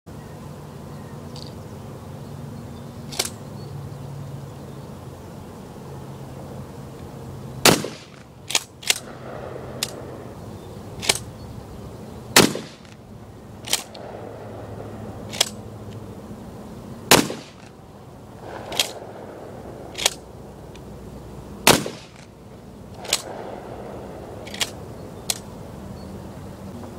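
Shotgun shots from a 12-gauge firing low-base birdshot: four loud shots roughly four to five seconds apart, with many fainter sharp cracks between them.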